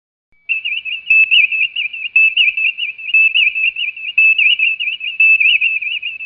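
Star Trek original-series computer processing sound: a high electronic warbling tone laced with rapid chirping blips. It starts about half a second in and runs steadily, the computer working on a record request.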